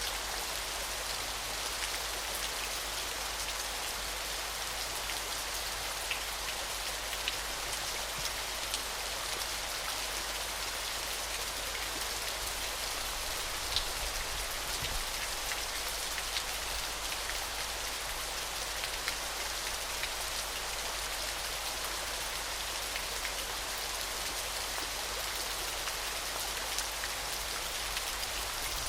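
Steady hiss of falling, splashing water, with scattered small droplet ticks.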